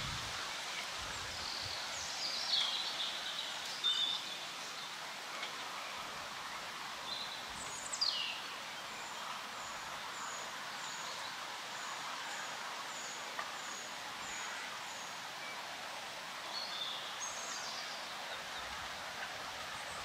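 Wind rustling through the forest leaves in a steady hiss, with songbirds calling over it: a few calls two to four seconds in, a sweeping downward call near eight seconds, then a regular run of short high notes.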